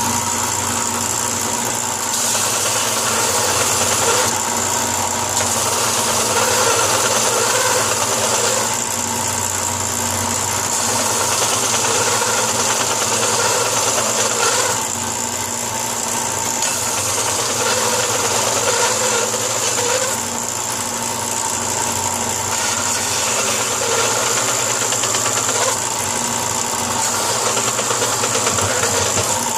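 Electric power sander running while the steel block of a bandsaw motor mount is sanded. There is a steady high whine, and the grinding noise grows and eases every few seconds as the work is pressed on and eased off.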